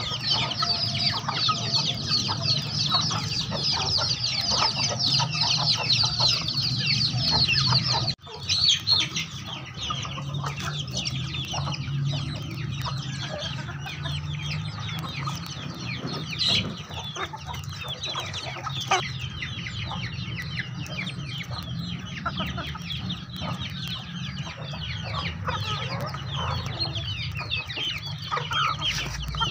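A mixed flock of chickens and young chicks clucking and peeping continuously as they feed, with a dense stream of short, high peeps over lower clucks.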